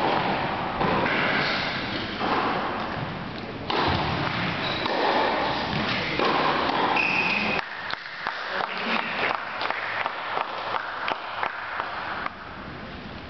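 Play in an indoor tennis hall: a dense din of noise for about seven seconds, then a run of sharp knocks, a few a second, that stops about a second before the end.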